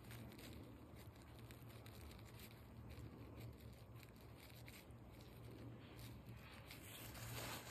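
Near silence: a faint steady low hum with soft rustles of a paper wipe and gloved fingers, a slightly louder rustle near the end.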